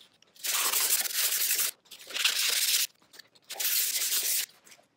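Three long hand strokes of an abrasive pad scrubbing along a wet carbon-steel knife blade, a scratchy hiss with pauses between strokes, as the blade is polished.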